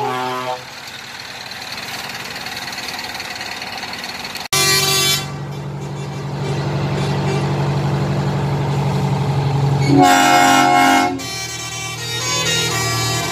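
Trucks' diesel engines running as they pass, with air horns sounding: a short blast about four and a half seconds in and a louder chord-like blast lasting about a second around ten seconds in.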